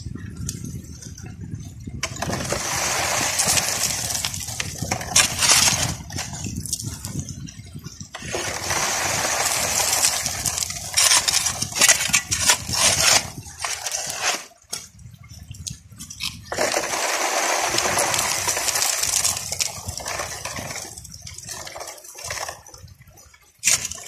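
Gravel shovelled into a pump-fed highbanker: the shovel scraping and stones clinking, with three long stretches of rushing water as the load is washed down the sluice.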